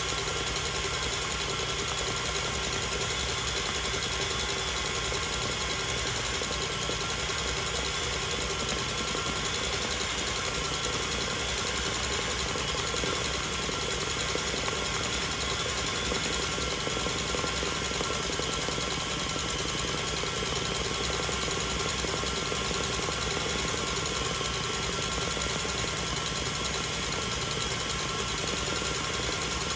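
Stand mixer running at a steady speed, whipping Swiss meringue toward the glossy stage.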